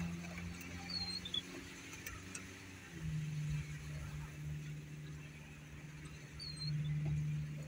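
Vehicle engine running steadily, heard from inside the cabin as a low hum that weakens and shifts for a moment before settling again about three seconds in. Two brief high squeaks sound over it, one early and one near the end.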